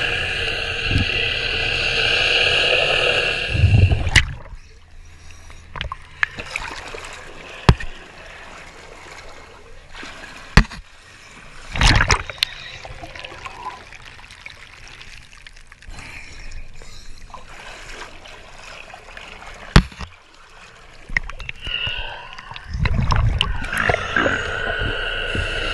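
Remora Solo rotary hull-cleaning brush running against a boat hull, heard underwater: a steady motor whine with scrubbing that stops about four seconds in. A quieter stretch of water noise with a few sharp knocks follows, and the brush starts again near the end.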